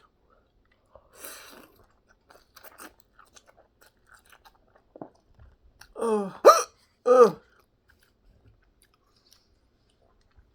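A person chewing food with soft wet mouth clicks, then about six seconds in a quick run of loud voiced hiccups, another coming about half a second after the first. The hiccups are brought on by eating spicy noodles.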